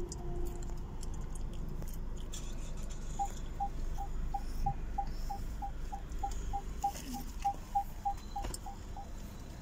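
A car's cabin beeper sounding a regular series of short, single-pitch beeps, about three a second and slightly quickening, starting about three seconds in and stopping just before the end, over the low rumble of the car's engine and tyres.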